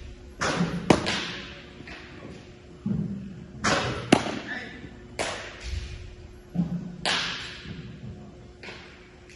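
Baseballs smacking into a catcher's leather mitt, about three pitches roughly three seconds apart. Each is a short rush followed by a sharp pop as the ball lands in the glove.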